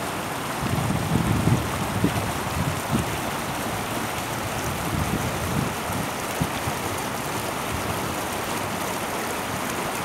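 Shallow stream water rippling over its bed in a steady rush, with wind buffeting the microphone in gusts over the first few seconds.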